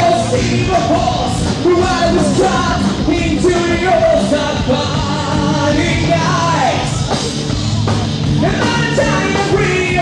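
Live rock band playing at full volume, with electric guitars, bass and drums, and a singer's voice riding over the music.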